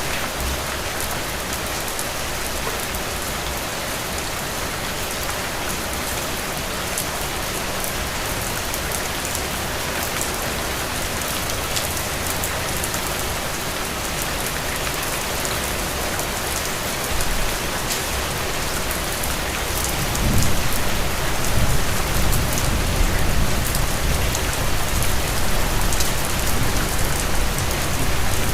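Steady rain falling and pattering on surfaces, an even hiss. About two-thirds of the way in, a low rumble joins it and the sound grows louder.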